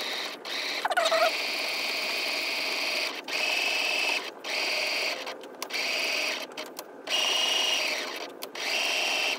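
Pfaff electric sewing machine running in several short stretches with brief pauses between, as it top-stitches around the edge of a layered cloth pad.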